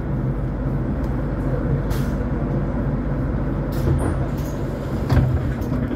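Solaris Trollino 12 IV electric trolleybus in motion, heard on board: a steady low hum and rumble, with a few knocks and rattles and a sharper thump about five seconds in.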